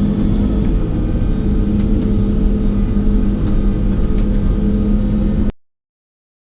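Excavator's diesel engine running steadily at a constant pitch, with a few light clicks over it; the sound cuts off suddenly about five and a half seconds in.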